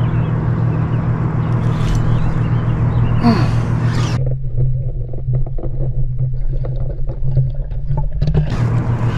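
A steady low hum with a rumble under it. The higher sounds above it cut out abruptly about four seconds in and come back just before the end.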